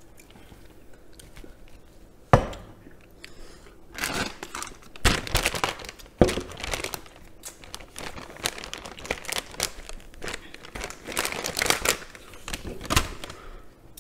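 Plastic wet-wipe packet crinkling and tearing as it is opened and a wipe is pulled out, in repeated rustling spells. A single sharp knock about two seconds in is the loudest sound.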